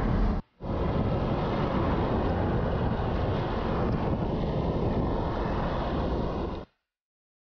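Wind rushing over the microphone of a moving motor scooter, mixed with road noise. It breaks off briefly about half a second in and cuts off suddenly near the end.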